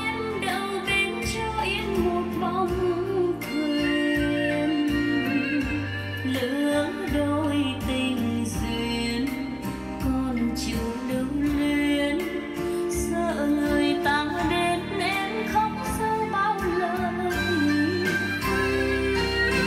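A song with a singing voice and prominent bass notes, played from a phone over Bluetooth through a Samsung HW-M550 soundbar.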